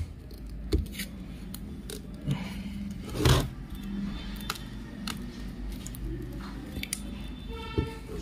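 Stiff paper strip being worked free and pulled out of a loudspeaker driver unit's magnet cap, where it was stuck with Araldite: dry paper crackling and scraping against metal. There are scattered small clicks and a louder crackle about three seconds in.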